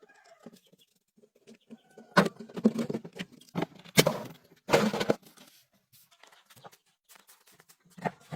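Irregular knocks and clatter, short sharp sounds with a few louder ones about two, four and five seconds in and again near the end.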